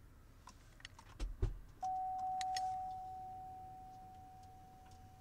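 Buick Enclave power liftgate opened from the dash button: a few sharp clicks and a low thud, then a single steady warning tone that starts about two seconds in and fades slowly.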